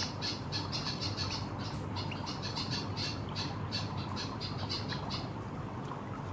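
White-headed munia (emprit kaji) singing a canary-like song: a rapid run of short, high chirping notes, several a second, that stops about five seconds in.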